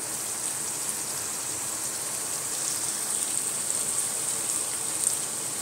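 Fish curry sizzling and bubbling in a metal pot on a gas stove: a steady crackling hiss as the thick sauce cooks down, with a single small tick about five seconds in.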